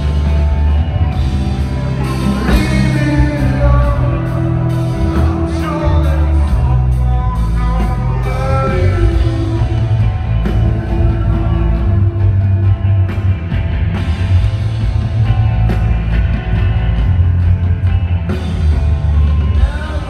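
Rock band playing live with singing, electric guitars, bass and drums, heard from far back in the crowd of a large concert hall.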